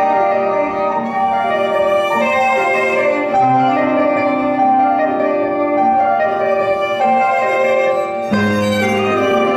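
Violin and piano duet played live: the violin bows long held melody notes over piano chords, with a new, fuller chord coming in a little after eight seconds in.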